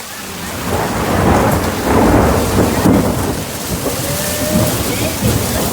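Thunder rumbling over heavy storm rain. The rumble swells up about half a second in and stays loud and deep.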